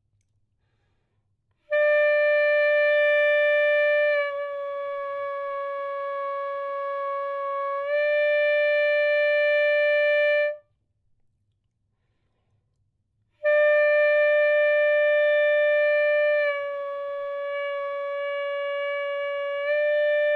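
Alto saxophone playing two long held notes, each bent down about a half step and back up. While bent, the tone drops in volume and turns airy and unfocused, the result of too much jaw movement.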